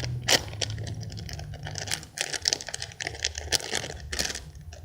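Handling noise from a Hello Kitty squishy toy in its plastic wrapping: irregular crinkling and small clicks as it is turned over in the hands close to the microphone.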